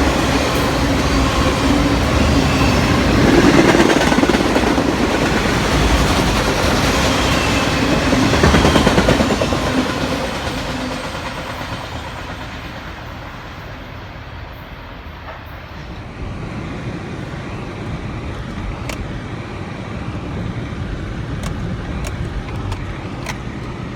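Train rolling past: the rumble of cars and wheels on the rails, loud for the first ten seconds or so, then fading as it draws away, leaving a quieter steady noise with a few faint ticks.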